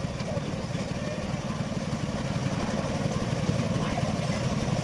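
An engine idling steadily, with an even, fast low pulse.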